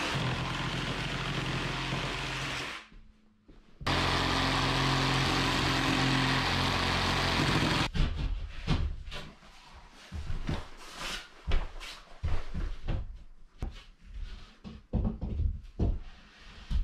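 Cordless jigsaw cutting a board, running steadily, stopping for about a second near the three-second mark and starting again for about four seconds. From about eight seconds in, irregular wooden knocks and thuds as timber cabinet frames and a wooden panel are handled and set in place.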